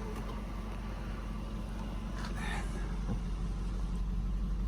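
Electric power seat motor of a 1998 Lexus SC400 running, driving the seat, as a steady low hum that grows slightly louder.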